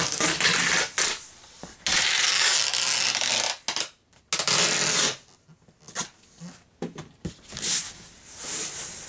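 Clear packing tape pulled off a handheld tape gun across a cardboard box: three long strips, one after another, then a few short clicks and rubs as the tape is cut and pressed down.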